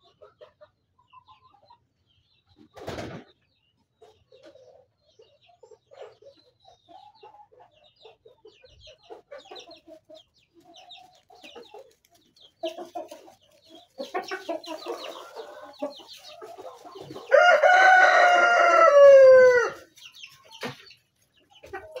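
Sasso cockerels clucking sporadically as they come into the pen, the calls growing busier as more of them arrive. About 17 seconds in, one cockerel gives a long, loud crow that falls in pitch at the end. A single knock sounds about 3 seconds in.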